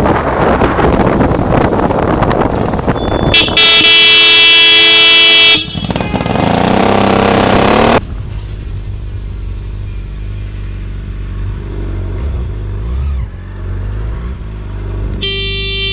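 Vehicle horns sounding over motorcycle riding noise. A loud horn blast of about two seconds comes a few seconds in, followed by an engine rising in pitch. Near the end there is a short second horn blast as a car pulls out across the rider's path.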